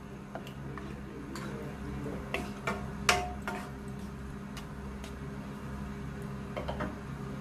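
Wooden spoon stirring raw mutton pieces in water in a non-stick pan, with scattered light knocks and scrapes of the spoon against the pan, the loudest about three seconds in. A steady low hum runs underneath.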